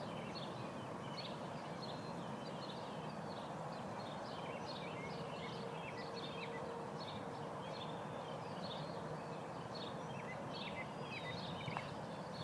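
Small birds chirping rapidly, several short chirps a second, over a steady outdoor background noise.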